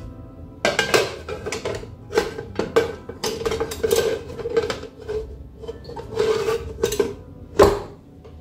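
Stainless-steel pressure cooker lid being fitted onto the pot and turned into place: repeated metal clanks and scrapes over a ringing note, with one loudest clank near the end.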